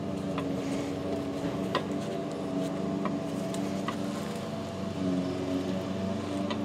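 A steady droning hum of several held tones, from a motor or engine that cannot be identified, with four or five light clicks as gloved hands turn and knock together coil-over strut assemblies.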